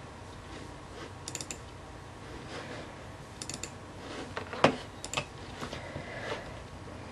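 Clicking on a laptop's keys and buttons: two quick runs of about three clicks each, then a louder knock about four and a half seconds in, followed by a few scattered clicks.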